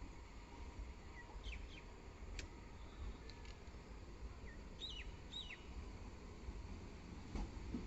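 A few birds chirping faintly: scattered short calls, the clearest a pair of down-slurred notes about five seconds in, over a low steady rumble.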